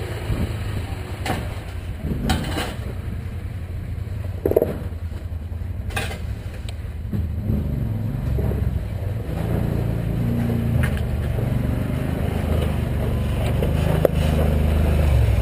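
Off-road side-by-side engines running: a steady low idle close by, with a few sharp knocks in the first six seconds. From about eight seconds in, a Kawasaki side-by-side's engine grows louder as it drives slowly over rocks toward the microphone, loudest near the end.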